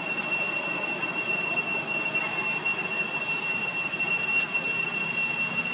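Steady, shrill insect drone, typical of cicadas, holding one high pitch without a break over a constant hiss of outdoor background noise.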